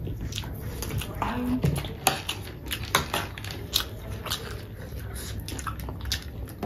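Close-up eating sounds: chewing and crunching on a spicy chatpate noodle snack, with scattered clicks and scrapes of spoons and forks on the plates. A short low hum from one of the eaters comes about a second and a half in.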